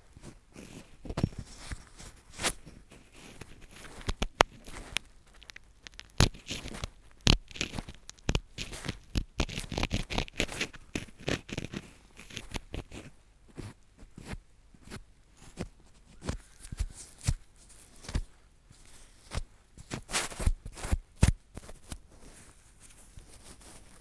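Drill-screw (spiral) ear pick scratching and scraping in an ear right at the microphone: irregular crackly scrapes broken by sharp clicks. The scratching is densest around the middle.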